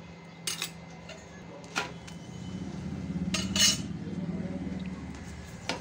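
Metal spoon clinking against an iron griddle a few times while oil is spread on a flatbread cooking on it, the loudest pair of clinks a little past the middle, over a low hum that swells in the second half.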